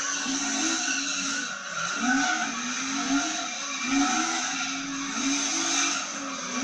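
Drift car sliding with tyres squealing, while its engine revs rise and fall over and over as the throttle is worked.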